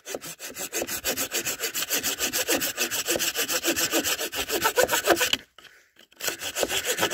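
Hand saw cutting through a dry carob branch in quick back-and-forth strokes, stopping briefly about five and a half seconds in, then sawing again.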